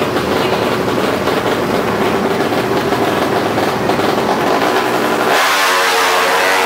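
Racing motorcycle engines running, with a louder engine revving in about five seconds in, its pitch wavering up and down.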